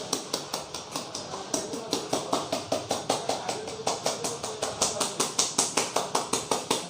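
A barber's hands striking a customer's head in rapid percussive massage strokes, an even rhythm of sharp slaps at about five a second.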